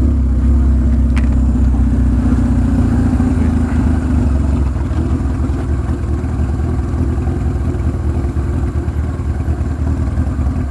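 Kawasaki KZ1000's air-cooled inline-four engine running steadily at low road speed, heard from the rider's helmet, with a single sharp click about a second in.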